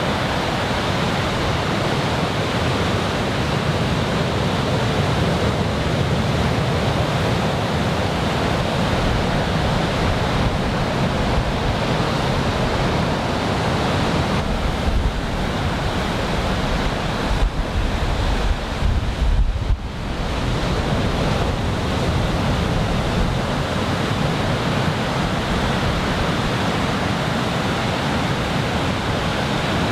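Ocean surf from a typhoon swell breaking and washing steadily. From about fifteen to twenty seconds in, wind buffets the microphone with a low rumble.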